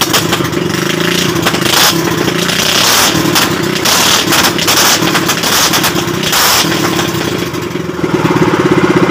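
Loncin small single-cylinder four-stroke gasoline engine running at a steady speed, its exhaust pulsing rapidly, with several bursts of hiss over it between about two and seven seconds in.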